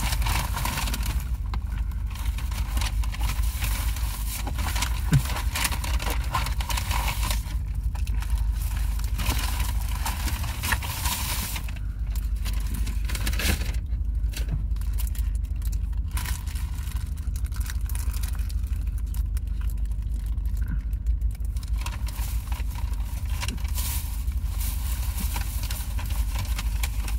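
Steady low rumble inside a car, with the paper wrapper of a fried chicken sandwich crinkling and crackling as it is handled and eaten.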